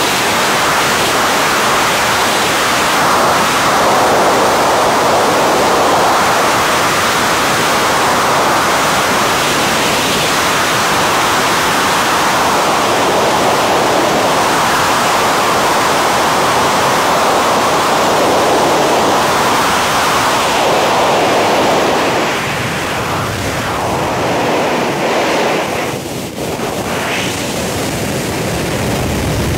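Wind rushing over the microphone of a camera carried in wingsuit flight: a loud, steady rush of air that eases and wavers for a few seconds near the end.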